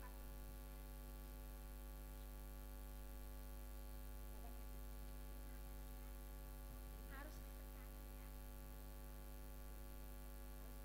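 Steady electrical mains hum at a low level, with faint, brief voices about seven seconds in.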